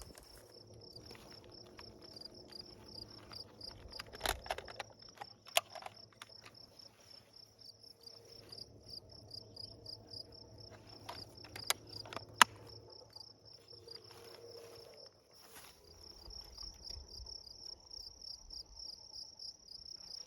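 Insects chirping steadily in a fast, even pulse, with several sharp clicks and knocks from handling gear, the loudest a pair about eleven and twelve seconds in.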